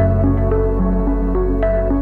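Background music: a slow, gentle melody of single notes over a held low bass note.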